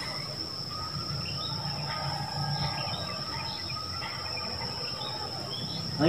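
Outdoor ambience: faint, scattered bird chirps over a steady high, insect-like tone and a low, steady hum.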